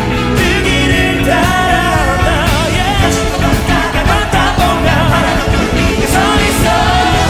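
A male singer singing live over a pop band accompaniment, his held notes wavering with vibrato.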